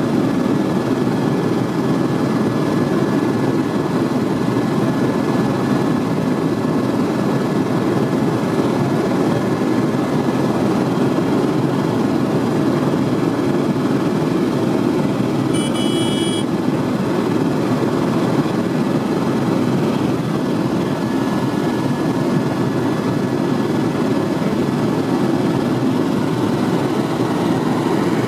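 Helicopter in flight heard from inside the cabin: a loud, steady rumble of rotor and engine with a thin steady whine above it. A short high-pitched tone sounds a little past halfway.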